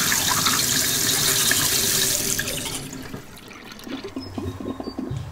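Kitchen tap running into a stainless-steel sink, a steady rushing hiss that dies away about two and a half seconds in. After it come quieter, irregular scrubbing strokes of a toothbrush on teeth.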